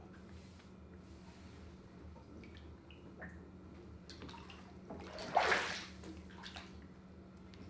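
A cloth towel being handled and spread out on a wet tiled floor, with small rustles and clicks and one louder swish about five and a half seconds in, over a steady low hum.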